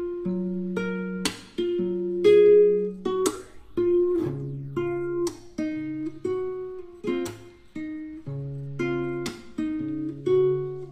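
Slow acoustic guitar music: picked notes and chords, about one a second, each ringing on over a low bass line.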